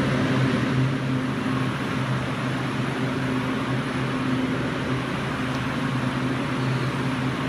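A steady machine hum with an even hiss over it, unchanging throughout, like a ventilation fan or refrigeration unit running.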